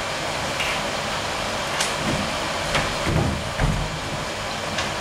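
A person dropping to his knees on a stage floor: a couple of low thuds a little past three seconds in, over steady room hiss with a few small clicks.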